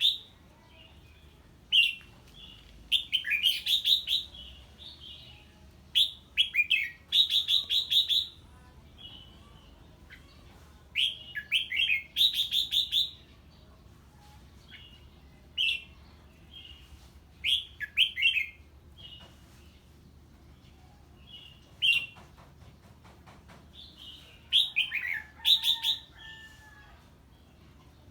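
Red-whiskered bulbul singing in short, loud bursts of whistled notes every few seconds, several phrases running into a rapid chattering trill: the agitated 'hót ché' song given in response to an unfamiliar bird.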